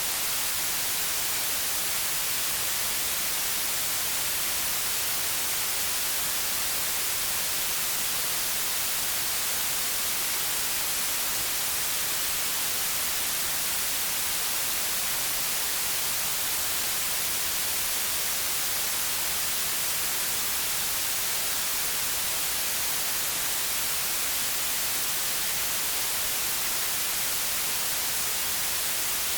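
Steady white noise: an even hiss with no rhythm or tone, strongest in the high treble and unchanging throughout.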